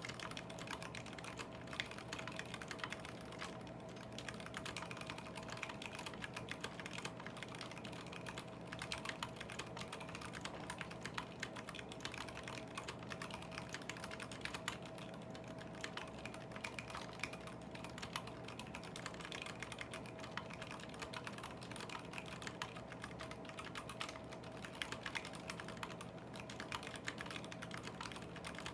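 Typing on a KBD75v2 custom mechanical keyboard with stock Zealios v2 78g tactile switches, aluminium plate with foam and PBT keycaps: a dense, irregular run of keystrokes.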